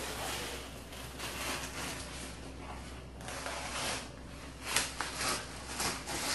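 Fresh banana leaf rustling and tearing as it is pulled away from its stalk by hand, with a few sharper crackles in the second half.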